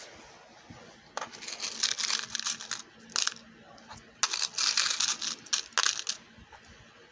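Small gold-tone metal charms clinking and jingling against each other as fingers stir and pick through a heap of them in a plastic compartment box, in bursts of rapid clinks with the longest near the end.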